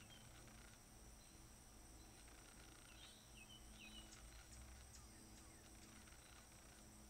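Near silence: faint outdoor ambience with a steady high hiss, and a few short bird chirps about three to four seconds in.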